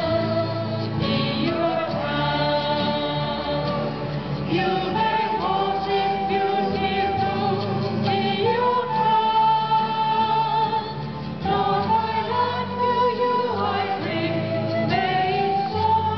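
Church choir, mostly women's voices, singing a slow hymn together in long held notes, accompanied by electronic organ and acoustic guitar.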